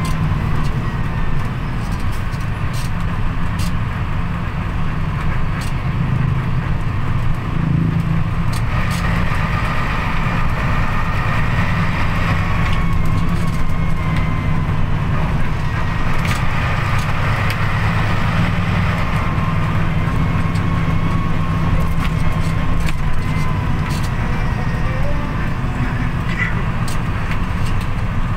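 Bus engine running steadily with road noise, heard from inside the moving bus as a low, even drone.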